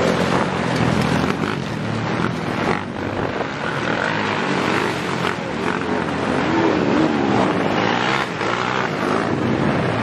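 Motocross bike engines revving and passing, their pitch rising and falling, over a steady hiss of heavy rain.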